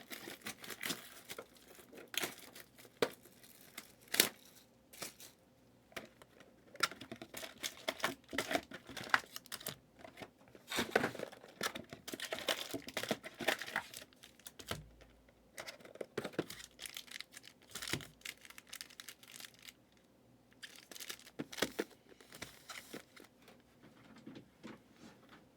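Plastic wrapping and card packs being torn open and crinkled, with scattered clicks and taps as cardboard boxes and cards are handled.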